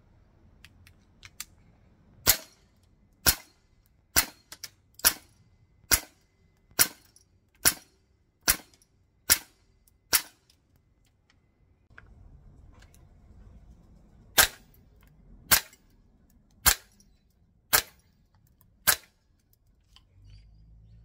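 Airsoft gas blowback rifle firing single shots in semi-auto, each a sharp crack, about one a second. Ten shots come first, then a pause of about four seconds, then five more.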